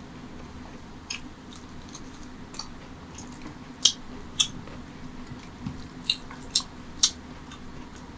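Close-miked wet eating sounds: rice and mutton curry being mixed by hand on a steel plate and chewed, with a handful of sharp wet smacks and clicks, mostly in the second half, over a low steady hum.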